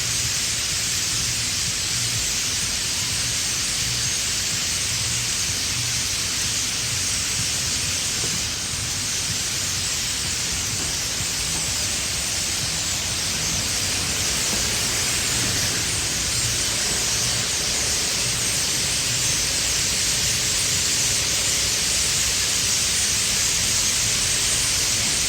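A huge flock of birds calling all at once, their massed chatter merging into a steady, loud hiss.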